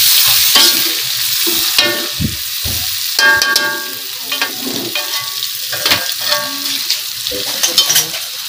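Tofu and salted fish stir-frying in a wok: a steady sizzle in hot oil, with the stirring utensil clacking and scraping against the pan many times.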